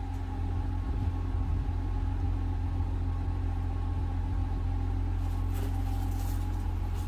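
Jeep Gladiator's V6 engine idling steadily, a low, even rumble.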